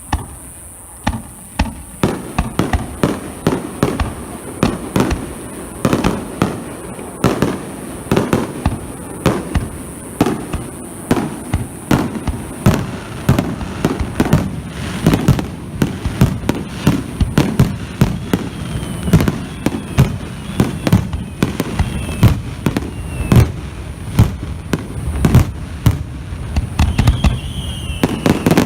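Fireworks display: a continuous barrage of shell bursts, a few bangs a second, each ringing on, with a few whistling shells in the second half.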